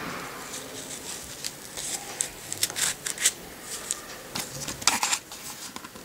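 The plastic clip of a Sony Ericsson LiveView being worked into a slit cut in a fabric watch strap: a series of short scratchy scrapes and rubs, the loudest about five seconds in.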